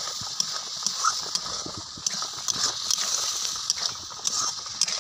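A metal spatula stirring and scraping mango chutney in a steel kadai, with irregular clinks of metal on metal over a steady sizzle.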